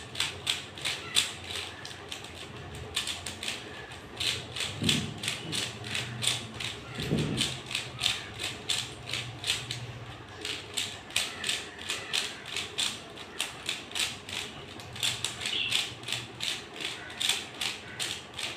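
Rubik's cube being turned quickly by hand: its plastic layers clicking in quick, uneven runs of several clicks a second.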